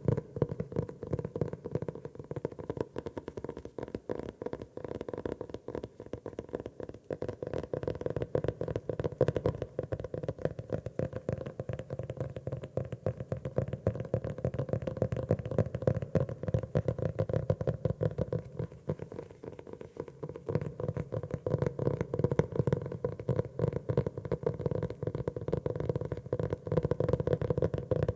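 Rapid tapping on a notebook, many quick taps a second in a dense run, thinning briefly about two-thirds of the way through.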